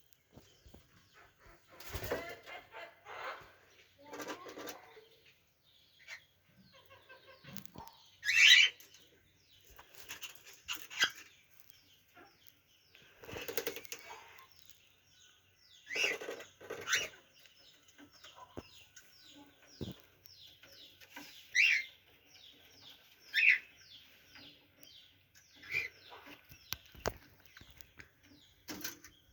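Cockatiels in an aviary chirping and calling in scattered bursts, with a few louder calls, and wings flapping now and then.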